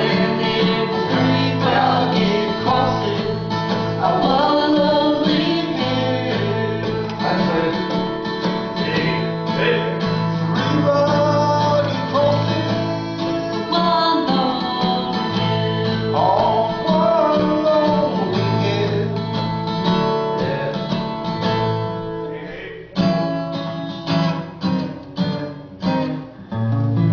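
Acoustic guitar music in a country style, strummed steadily under a melody line. About 23 seconds in, the playing breaks into separate, choppier chord strokes.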